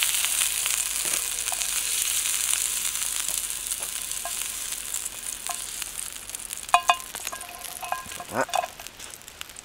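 Scallops sizzling in a hot frying pan as they are lifted out with a spatula, the sizzle dying away steadily over the seconds. A few light clinks come near the end.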